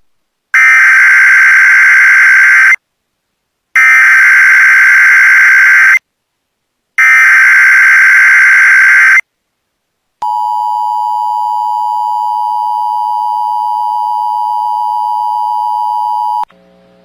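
NOAA Weather Radio Emergency Alert System signal for a Child Abduction Emergency: three loud bursts of SAME header data tones, each about two seconds long with a second's gap between them, then the steady 1050 Hz weather radio alert tone held for about six seconds.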